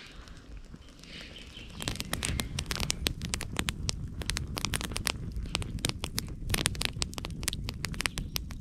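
Wood fire crackling, with dense, irregular snaps and pops starting about two seconds in after a quieter start.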